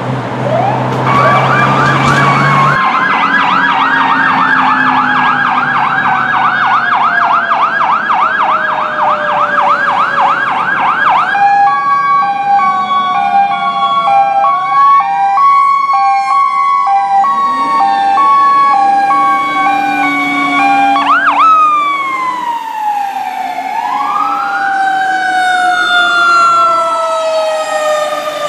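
Fire apparatus sirens passing: a fast electronic yelp warbling until about 11 seconds in, then a hi-lo two-tone alternating steadily between a high and a low note while wail sirens rise and fall over it. Near the end long wails wind down in pitch.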